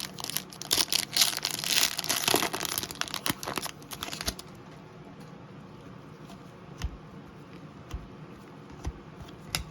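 Trading card pack wrapper crinkling and tearing for about four seconds, then a few soft, separate taps.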